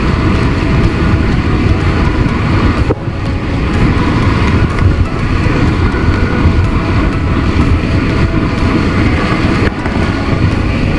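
Steady wind buffeting the microphone of a camera on a banana boat towed at speed, mixed with water rushing and spraying along the inflatable tube. The rush dips briefly about three seconds in.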